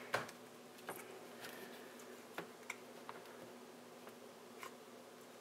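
Faint, scattered clicks and taps of hands handling an interlocking solid puzzle, the sharpest one just after the start, over a faint steady hum.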